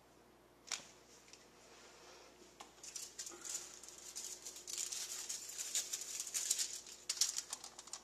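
A sharp click, then aluminium foil crinkling and rustling in a dense crackle for several seconds as it is pressed over a dish of burning isopropyl alcohol to smother the flames.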